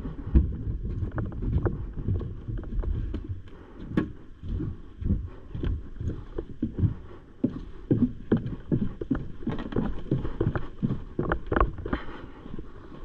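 Footsteps thudding on a wooden plywood floor and down wooden stairs, about two steps a second in the second half, over a low rumbling noise on the microphone.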